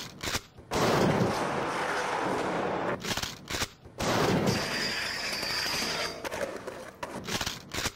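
Raw skateboarding sound: urethane wheels rolling on concrete with sharp board impacts, broken by sudden cuts into silence several times.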